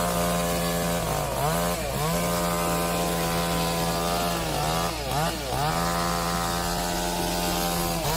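Two-stroke chainsaw running at high revs while cutting. Its engine note dips briefly and recovers about four times, then cuts off abruptly at the end.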